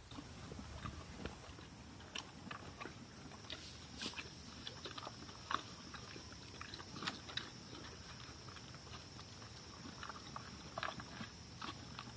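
A horse and a raccoon chewing feed side by side: irregular wet crunching and clicking of food between teeth, with a few louder crunches. A faint steady high-pitched tone sits underneath.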